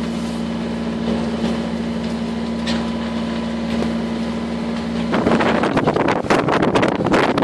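Aboard a sailing yacht in rough seas: a steady low mechanical hum runs for the first five seconds or so. It then gives way to louder, gusting wind buffeting the microphone, with waves rushing and breaking along the hull.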